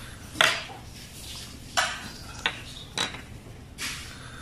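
A clear plastic jar and its screw lid being handled: about five short plastic knocks and clatters spread over four seconds, the first the loudest.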